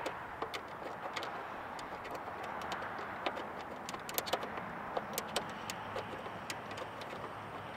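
Small, irregular metal clicks and taps as strut-mount hardware is threaded in by hand on a Jeep Wrangler JL's hood, over a steady background hiss.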